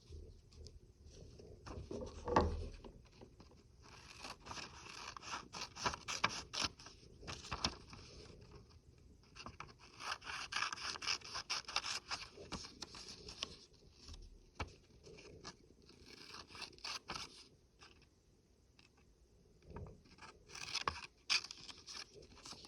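Scissors cutting through paper in several runs of quick snips, with quieter pauses between the runs.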